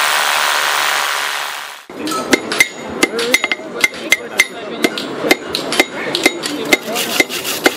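An electric drill runs for about the first two seconds and cuts off. Then two smiths hammer red-hot iron on an anvil: a fast run of ringing metal-on-metal strikes, about three a second.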